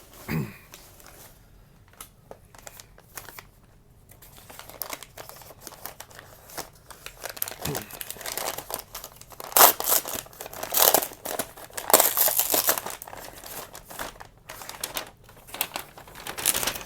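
Packing material crinkling and rustling as model cars are pulled out of a shipping box, in irregular bursts that grow louder past the middle.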